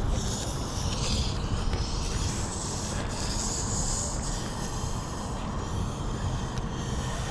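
A magnet-fishing rope being hauled in, rasping and rubbing in two longer stretches, over a steady low rumble.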